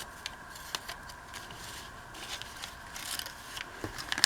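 Paper being folded over and creased by hand: light rustles and scrapes of paper, with a sharper tap near the end.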